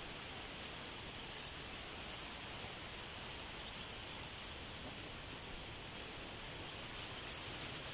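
Steady outdoor hiss of rushing water, with a strong high-pitched hiss over it and a small brief rustle about a second in.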